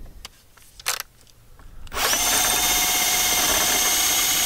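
A cordless drill spins up about halfway in and runs at a steady speed with an even whine, used to get out a door screw that is broken and will not come off by hand. A short sharp click comes about a second in, before the drill starts.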